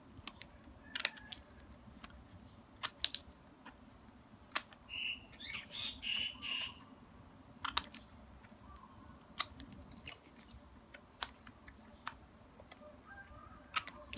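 Steel scissors snipping off the loose ends of a woven ribbon: a series of short sharp snips spaced a second or two apart, with the ribbon rustling in the hands about five to seven seconds in.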